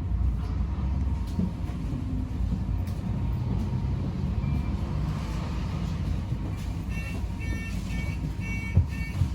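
Low steady rumble of a bus in motion, heard from inside. From about seven seconds in, an electronic beep starts repeating about twice a second, and two sharp thumps come near the end.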